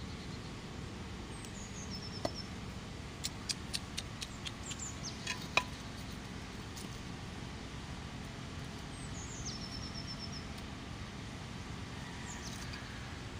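A small bird calls four times, each a high falling note followed by a quick run of short notes. In the middle comes a short series of sharp clicks and taps, the loudest about five and a half seconds in, all over a steady low background rumble.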